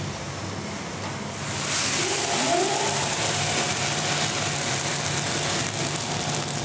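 1958 Probat 45-kilo coffee drum roaster running. About two seconds in, the finished batch drops from the drum into the cooling tray as a loud, steady rush of pouring beans, stirred by the tray's rotating arms; this marks the end of the roast.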